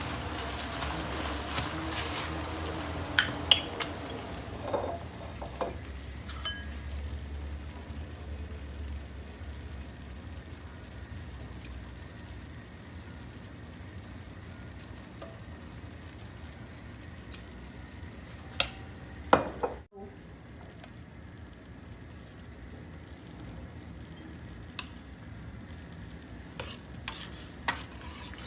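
Food sizzling and frying in a pan while being stirred, with occasional sharp clicks and knocks of a utensil against the pan. The sound briefly cuts out about two-thirds of the way through.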